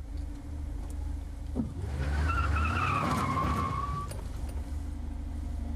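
Car engine running, then tyres squealing for about two seconds as the car pulls away hard, the squeal sliding slightly down in pitch before it stops.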